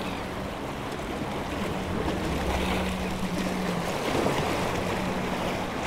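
Waves washing against the stone blocks of a sea jetty, with wind: a steady rushing noise with a faint low hum underneath.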